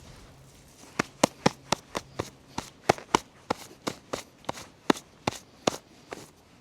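Grazing animals biting off and tearing grass: a quick run of sharp snaps, about three or four a second, starting about a second in and stopping near the end.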